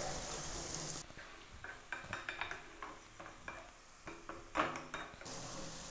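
Wooden spatula stirring and scraping chopped okra and spices in an aluminium pot, over a faint sizzle of frying. The scrapes come in a cluster about two seconds in and louder again near the end.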